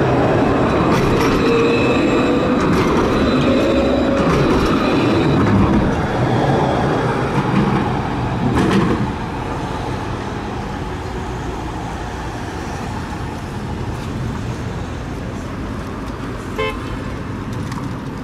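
Alstom Citadis 403 tram passing close, its motors giving a whine that rises in pitch over the rumble of wheels on rail, for about the first nine seconds. Then steadier street traffic, with a short pitched beep near the end.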